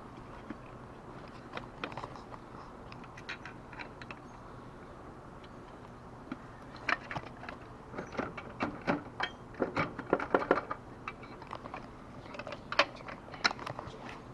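Irregular clicks, taps and light rattles of parts being handled and fitted by hand, sparse at first and thickening into a busy cluster past the middle, with a few more near the end.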